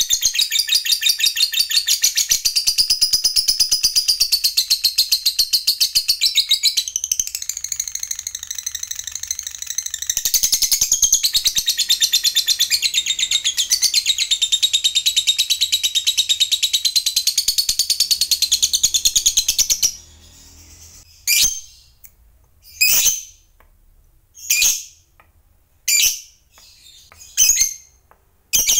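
Fischer's lovebird singing a long ngekek: a very fast, unbroken chatter of high notes held for about twenty seconds, then breaking off into single short calls about every second and a half.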